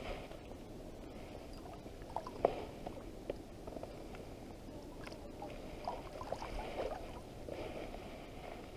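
River water lapping and gurgling at the shore, with a few scattered small clicks and knocks, the sharpest about two and a half seconds in.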